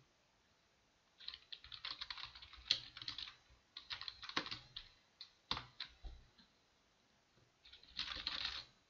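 Computer keyboard typing in quick runs of keystrokes, broken by pauses, with a few single keystrokes in the middle and a last short run near the end.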